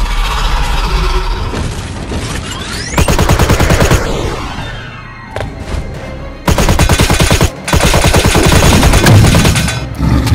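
Film-style sound effects of rapid rattling, like machine-gun fire, in three bursts, the longest near the end, over music.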